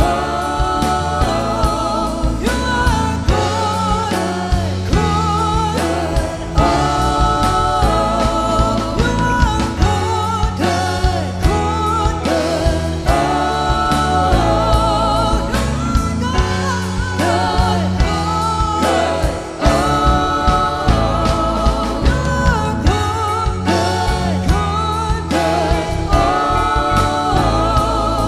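Live worship band playing a song: a man and women singing together into microphones over electric bass and a steady beat.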